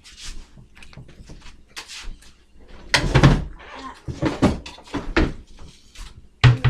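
A string of knocks and clatters from kitchen things being handled and set down, loudest about three seconds in and again near the end.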